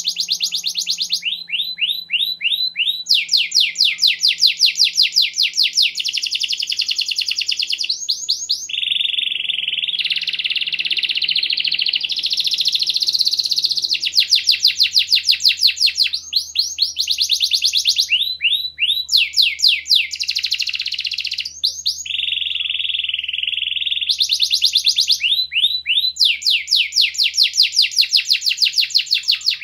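Domestic canary singing a long, loud song of rapid trills and rolls, switching from one repeated phrase to the next every second or two with only brief breaks.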